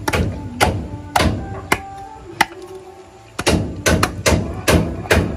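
Machete chopping raw pork on a wooden plank: sharp strikes about every half second, turning to quicker chops, several a second, from about three and a half seconds in.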